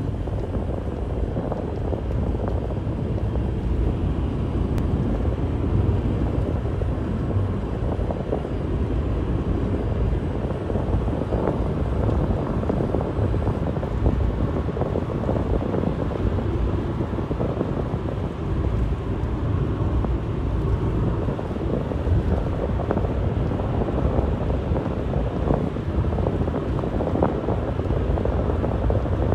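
Road and wind noise inside a moving car's cabin: a steady low rumble.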